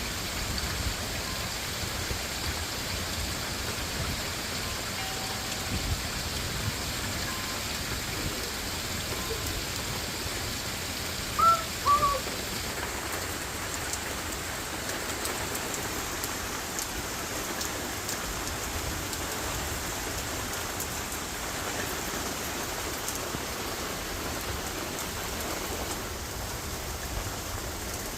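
Rain and hail falling steadily, with a constant hiss. About eleven seconds in come two short, high chirps, the loudest sounds in the stretch.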